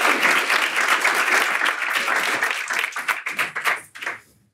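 Audience applauding, the dense clapping thinning to a few scattered claps and stopping about four seconds in.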